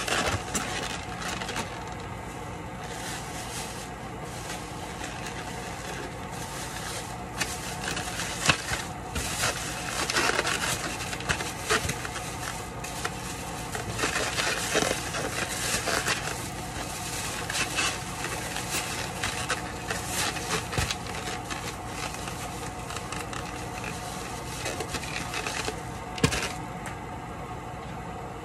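Thin plastic shopping bag rustling and crinkling while styrofoam takeout containers are handled and packed into it, with scrapes of the foam boxes and a few sharp knocks. A steady low hum runs underneath.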